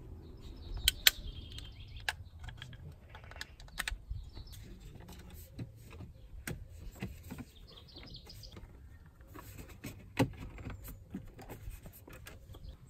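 Irregular small plastic clicks and taps from dashboard trim being worked by hand as the small plastic covers over the screen mounting are taken out. A sharp click comes about a second in, and another near ten seconds.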